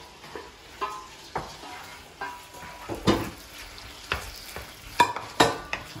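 Diced chicken sizzling in a hot frying pan over high heat while a wooden spoon stirs it, scraping and knocking against the pan at uneven intervals, loudest near the end.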